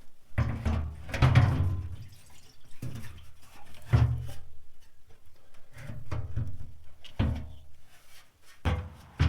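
Irregular clunks, knocks and rattles of a pickup's fuel tank strap and its bolts being worked into place by hand.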